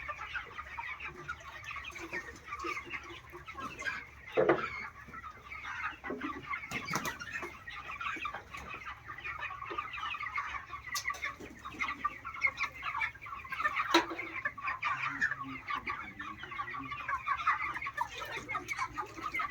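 A large flock of farmed chickens clucking and calling continuously, many birds at once, with a few brief knocks among the calls.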